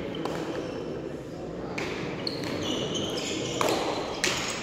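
Hard pelota ball struck by bare hands and smacking the frontón wall in a rally: sharp echoing cracks about two seconds in and twice close together near the end, over crowd chatter.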